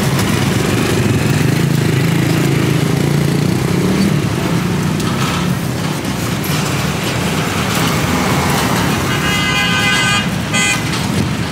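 Street traffic: the steady low rumble of running vehicle engines, with a vehicle horn sounding for about a second near the end.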